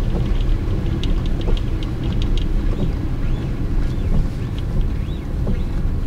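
Steady low rumble inside a moving car on a wet road: tyre, engine and wind noise. Scattered light clicks can be heard in the first second or so.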